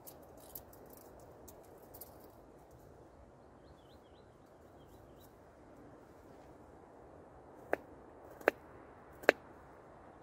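Three sharp knocks about a second apart near the end, each louder than the last, over a steady background hiss. A bird chirps faintly in the middle.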